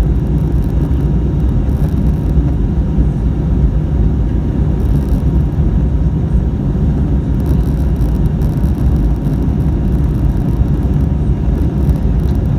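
Steady cabin noise inside an Airbus A320neo with Pratt & Whitney PW1100G engines: an even, low rumble of engines and airflow with a few faint steady tones over it.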